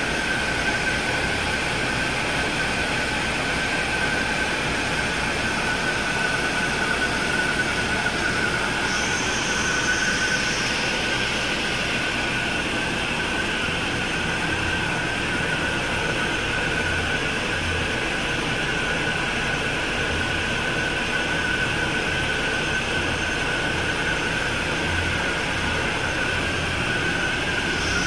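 Hanshin marine diesel main engine running in a ship's engine room: a steady, loud machinery drone with a constant high-pitched whine above it.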